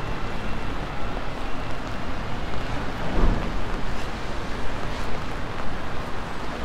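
City street ambience in the rain: a steady wash of traffic and rain noise, with a brief low thump about three seconds in.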